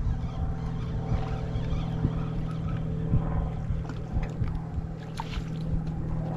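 Steady droning hum of a boat motor running, with an uneven low rumble and a few faint ticks underneath.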